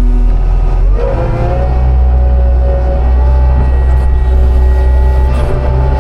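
Heavy vehicle engine running loud and steady, revving up about a second in and then holding at the higher speed.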